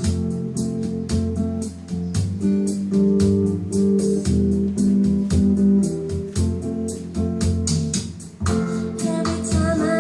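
Bossa nova music: plucked acoustic guitar and bass over a steady, evenly ticking percussion beat, with a higher melody line coming in near the end.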